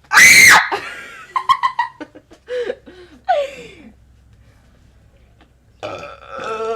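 A short, loud scream, followed by giggling and laughter. Near the end a long, wavering burp begins.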